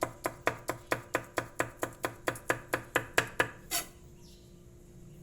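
Sharp knife chopping green onions into thin slices, a quick, even rhythm of about five cuts a second that stops near the end.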